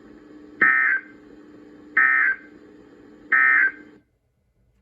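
NOAA Weather Radio SAME end-of-message signal: three short, identical buzzy digital data bursts about a second and a half apart, closing the weekly warning-alarm test. A low steady hum on the broadcast runs under them and cuts off about four seconds in.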